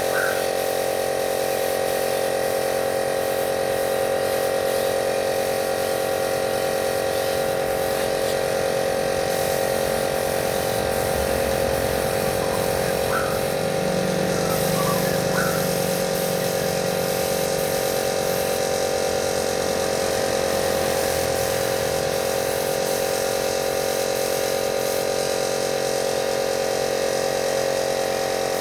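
Varnish spray equipment running with a steady, unchanging motor hum while the varnish is sprayed.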